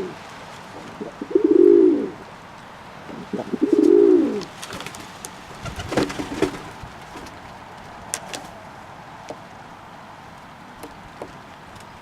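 Domestic pigeon cooing twice, each coo a low arching call about a second long, followed by a scatter of light clicks and scuffs and one sharp click.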